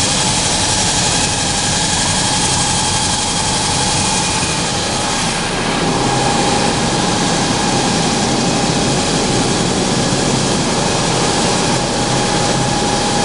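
Industrial sanding machine running: a steady, loud mechanical noise with a constant high tone over it that does not change.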